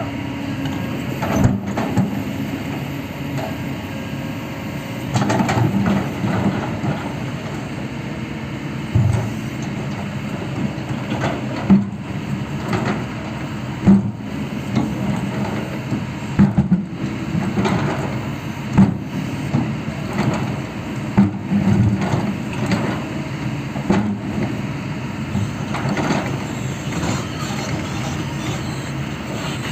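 Heavy diesel machinery, likely an excavator, running steadily, with repeated sharp knocks and cracks every couple of seconds.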